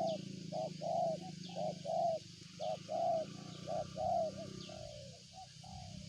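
Spotted dove (tekukur) cooing: phrases of short and longer coo notes repeated in a steady rhythm, stopping about five seconds in. A steady low hum runs underneath.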